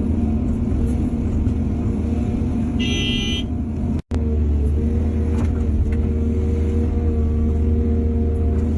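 Heavy diesel engine of an excavator running steadily under load, with a brief high-pitched horn beep about three seconds in. The sound cuts out for an instant about four seconds in.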